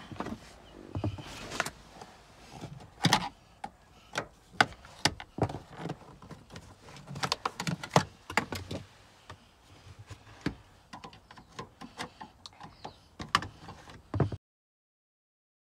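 Irregular clicks, knocks and rattles of a metal hand tool working on a car seat's floor-mounting bolts and rails as the seat is taken out. The seat frame and interior plastic knock now and then. The sound cuts off abruptly near the end.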